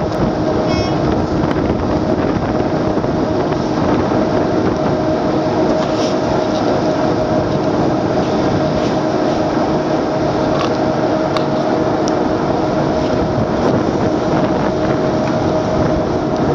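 A boat's engine running with a steady, unchanging drone, heard on board over the rush of water and wind.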